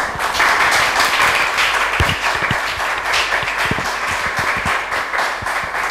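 An audience applauding: a steady patter of many hands clapping, with a few louder single claps standing out in the middle.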